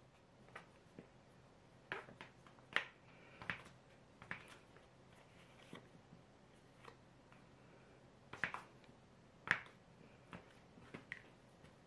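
Plastic dough scraper chopping cubes of butter against a wooden table: scattered soft taps and clicks, with two sharper knocks among them.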